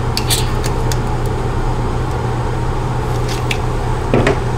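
Several short plastic clicks and taps as lithium-ion cells and a small USB battery charger are handled on a tabletop: a few just after the start, another near one second, and a pair late on. They sit over a steady low hum and hiss that never lets up.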